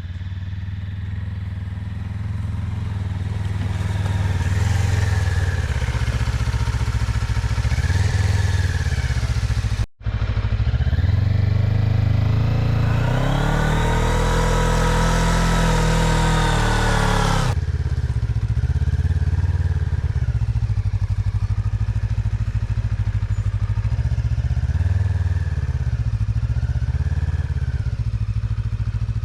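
GR400 motorcycle engine running under way. After a cut about ten seconds in, the engine note rises and falls, with another abrupt cut a few seconds later.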